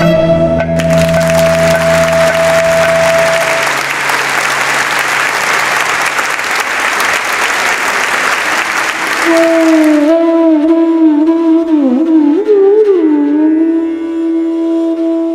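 Background music: a held note over a drone ends a few seconds in while applause runs on until about ten seconds in. A new piece then begins, a single melodic line with gliding ornaments over a steady drone.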